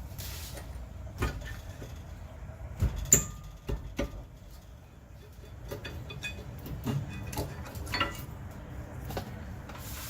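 Scattered metal clinks and knocks as tools and rear brake parts are handled, the sharpest a ringing metallic clank about three seconds in.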